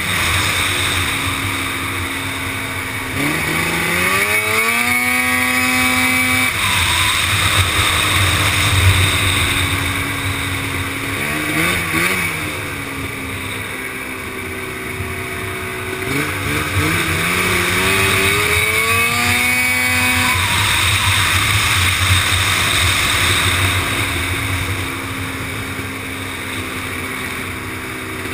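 Racing supermoto quad's engine heard from onboard at full pace: the revs climb in long rising sweeps as it accelerates out of the corners, dropping back as it slows for the bends, with a steady rush of noise underneath.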